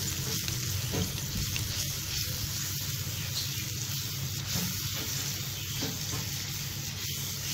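Onion-tomato masala with ground spices sizzling steadily in hot oil in a nonstick pan while a silicone spatula stirs it, the spice paste frying down.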